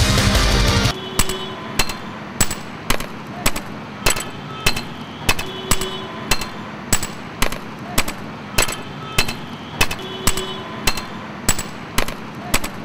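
Music cuts off about a second in. Then a hammer strikes stone again and again at a steady pace, a little under two blows a second, each blow ringing briefly: the sound of stone-breaking by hand.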